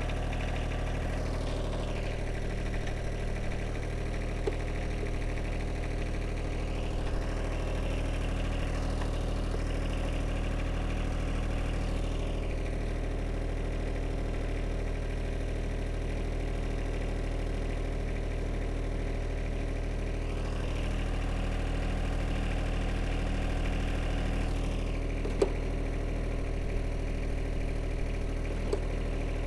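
John Deere subcompact tractor's diesel engine idling steadily, with a whine that rises and falls several times as the hydraulic three-point hitch is raised and lowered. A single sharp click about 25 seconds in.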